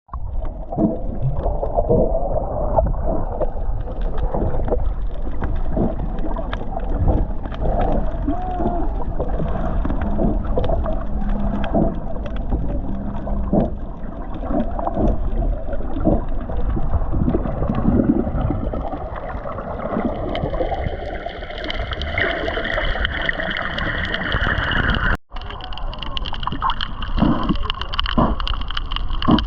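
Snorkeling in the sea, heard muffled underwater: water sloshing and gurgling with frequent knocks and bumps. From about twenty seconds in, a steady high whine joins. The sound drops out for an instant about twenty-five seconds in.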